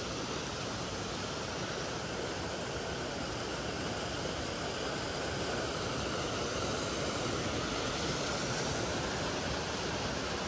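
River rapids rushing over and between rocks: a steady, even rush of white water.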